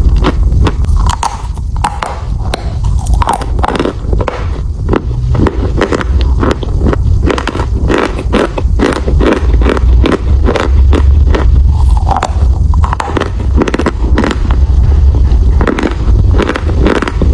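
Close-miked biting and chewing of chalk: a dense, uneven run of crisp crunches and crackles with a heavy low thud under them.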